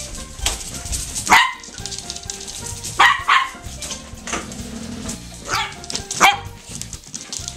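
Pembroke Welsh Corgi puppy barking in play as it herds a moving floor mop: about half a dozen short, high barks, the loudest about a second and a half in, two close together about three seconds in, and another pair near the end.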